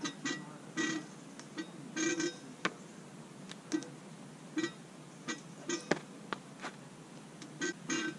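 A metal bar squeaking and creaking in short, irregular bursts under a person's weight as he swings and hangs on it, with scattered sharp clicks and knocks from his grip.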